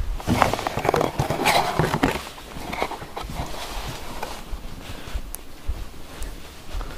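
Cardboard thermostat box being handled and turned over in the hands: rustling, scraping and light knocks, busiest in the first two seconds or so and sparser after.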